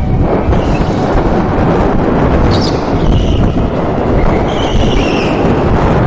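Onboard sound of an electric indoor go-kart driven at speed: a loud, dense rumble of wind, tyres and vibration on the kart-mounted camera, with a high electric-motor whine that comes and goes.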